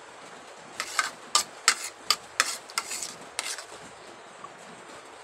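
Metal spoon clicking against a plate while eating: a run of about a dozen sharp clicks over two and a half seconds, starting about a second in.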